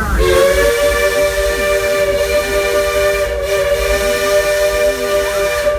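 Steam locomotive chime whistle blown in one long, steady blast of about five and a half seconds, a chord of several notes that cuts off sharply at the end, over the low rumble of the train.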